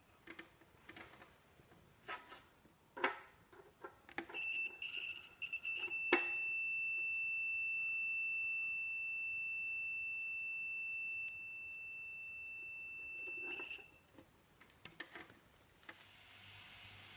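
Multimeter's test buzzer giving one steady high beep for about nine seconds, with clicks and taps of the probes before and after it.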